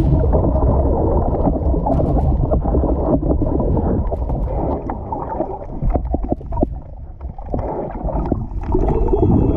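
Muffled underwater water noise, a steady low rumble with gurgling, broken by scattered sharp clicks and knocks, most of them in the first half.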